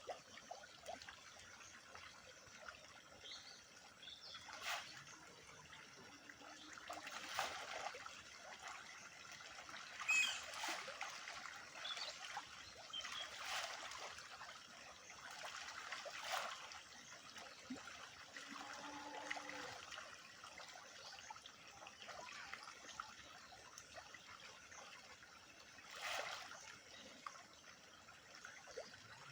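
Faint trickling water, with about six short splashes a few seconds apart.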